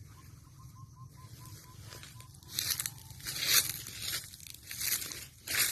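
Footsteps through dry grass and brush, with about five irregular rustling, crunching steps in the second half. A faint, even run of short high pips sounds in the first half.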